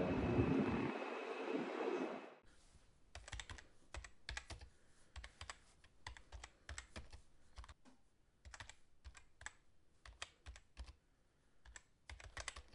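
Computer keyboard typing: quick, irregular keystroke clicks that start about three seconds in. Before them, a steady rumble of vehicle noise cuts off abruptly a little over two seconds in.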